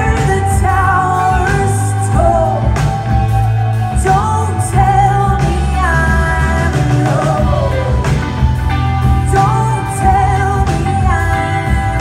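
Live band playing: a woman sings a gliding melody into a microphone over electric guitar, bass guitar and drums.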